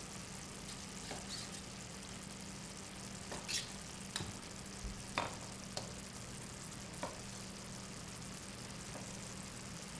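Tomato sauce sizzling steadily in a skillet, with a few faint knocks of a chef's knife against a wooden cutting board as a cooked chicken breast is sliced.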